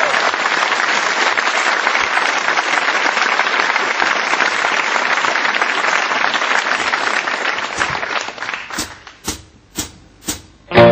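Studio audience applauding, dying away about eight seconds in. Then four sharp clicks about half a second apart: a drumstick count-in before the band starts.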